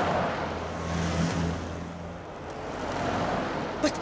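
Road traffic driving past one vehicle after another, the rush of each passing car swelling and fading, with a low engine hum early on. A short sharp click comes near the end.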